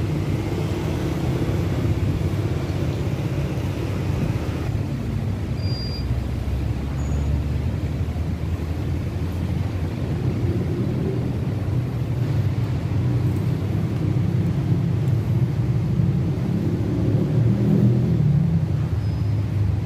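Steady low rumble of road traffic, swelling a little near the end, with a few faint short high chirps.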